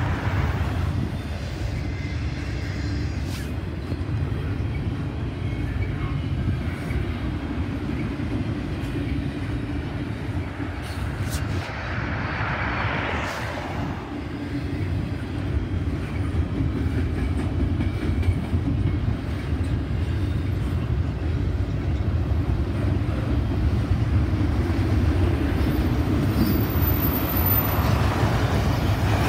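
Double-stack intermodal container well cars of a freight train rolling past, a steady low rumble of steel wheels on rail.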